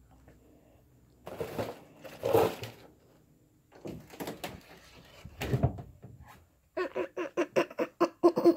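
Cardboard, paper and plastic being handled and moved about: rustling with a few knocks. Near the end comes a quick run of short pitched sounds, about four or five a second.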